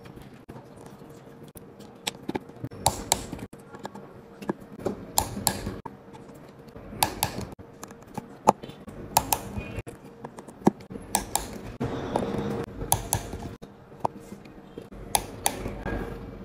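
Precision Torx screwdriver clicking against tiny screws and the metal shield plate of a phone's logic board as the screws are driven in: irregular sharp ticks, often in close pairs, over a faint steady hum.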